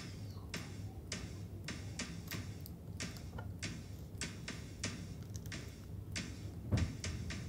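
Pliers crimping a metal microwave filter frame onto the filter: a run of short sharp metal clicks at uneven spacing, roughly two a second, with one heavier thump near the end.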